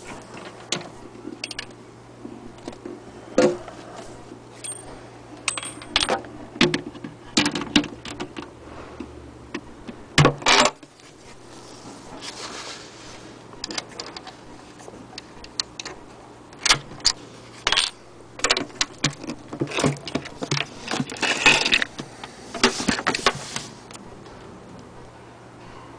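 Irregular clicks, knocks and light rattles as the wooden case and base of an antique hand-crank Singer Model 66K sewing machine are handled.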